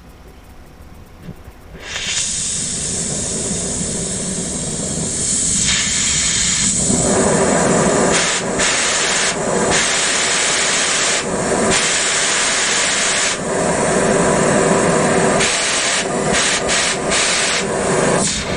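Gas hissing loudly out of a Smith cutting torch as its rebuilt valve is opened, showing that the valve works. The hiss starts about two seconds in, grows fuller about seven seconds in, and drops out briefly several times as the valve is worked.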